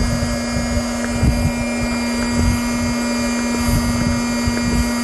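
Steady hum of a small electric motor, with the irregular low thumps and air rush of a hand-held air pump being stroked to top up an inflatable boat's chamber.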